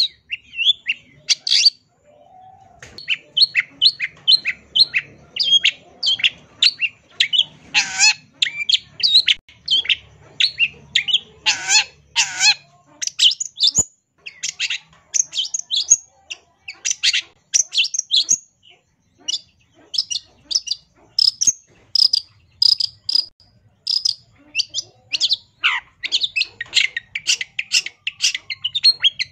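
Long-tailed shrike (cendet) singing a fast, varied song of short, sharp notes, several a second, packed with mimicked phrases ('isian'). Harsher chattering phrases come about a quarter and about two-fifths of the way in.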